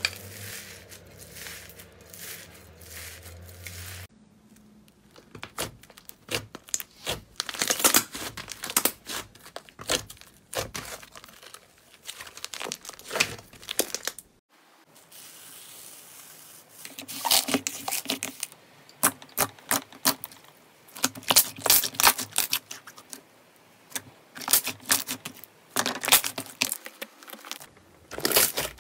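Hands squeezing and kneading slime, including a bead-filled slime and a soft pink one, making quick runs of sticky clicks and crackles with short pauses between squeezes.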